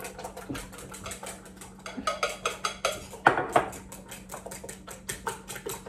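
A fork beating eggs in a ceramic bowl: quick, steady clinks of the metal tines against the bowl, about five a second, over a faint steady low hum.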